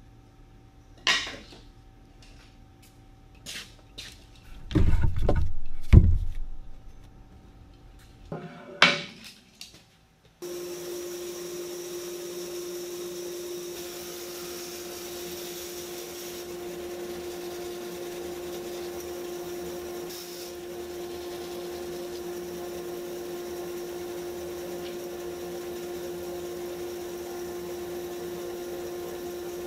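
A few sharp wooden knocks, with a louder clatter about five seconds in. Then, starting suddenly about ten seconds in, a large bandsaw runs with a steady hum while boards are fed through it and sliced into thin veneers.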